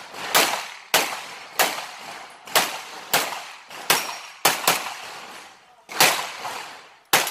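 Pistol fired in an IPSC stage: about ten sharp shots at uneven spacing, some in quick pairs, each with a short echoing tail.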